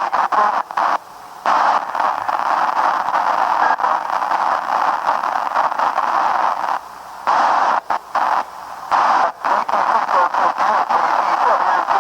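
Static hiss from an FM radio receiver tuned to the ISS amateur radio downlink, cutting out again and again for moments as the weak signal fades in and out.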